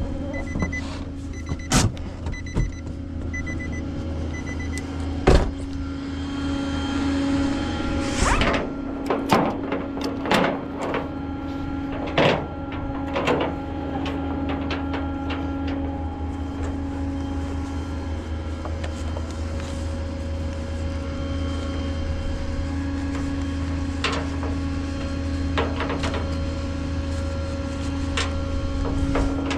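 A vehicle engine running steadily, with scattered clicks and knocks over it. A high electronic beep repeats for the first few seconds.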